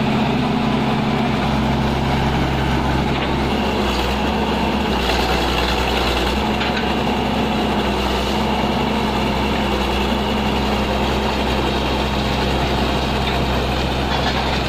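Excavator engine running steadily at a low, even idle.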